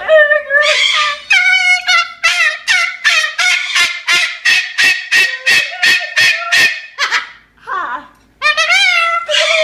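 Moluccan (salmon-crested) cockatoo singing in loud, pitched calls: a few drawn-out calls, then a quick run of about a dozen short repeated notes, nearly three a second, then a lower gliding call and a longer one near the end.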